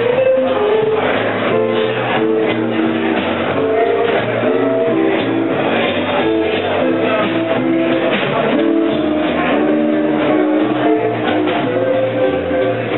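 Small jazz combo playing live: electric guitar over upright bass and drums, with a moving melody line and a steady beat.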